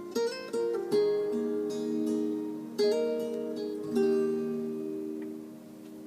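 Acoustic guitar playing a slow picked intro: single notes and small chords plucked a few times, each left to ring on.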